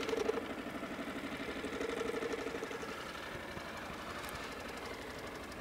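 Outboard motor running steadily at trolling speed with a fast, even putter.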